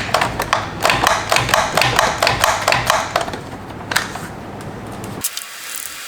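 Socket ratchet clicking in quick, irregular strokes while undoing the nut that holds a factory ignition coil. There is one more isolated click about four seconds in.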